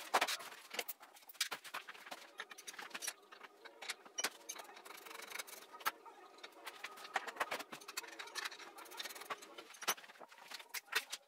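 Workshop clicks, knocks and scrapes of hand tools and metal parts as brackets, bolts and covers are taken off a motorcycle, in irregular short strikes.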